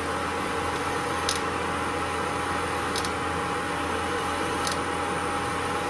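Sesame oil smoking-hot in a pan, sizzling steadily around frying fenugreek, with a steady hum under it.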